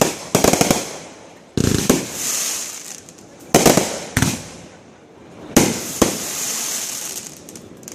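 Aerial fireworks going off: about six sharp booms, a few of them in quick pairs, each followed by a spell of crackling.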